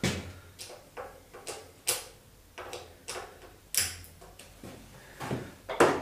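A small hand tool working the clamp bolt of a downhill mountain bike's brake lever as it is loosened: a string of light metallic clicks and knocks, with a louder clatter near the end.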